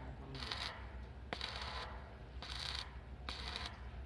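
Repeated short scraping strokes on metal, each about a third of a second long and coming roughly once a second, with an occasional sharp click, over a steady low hum.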